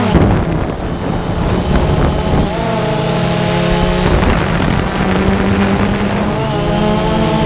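Engine of a small propeller aircraft running steadily with wind rushing over the microphone; its pitch steps to a new level about two and a half seconds in and again near the end.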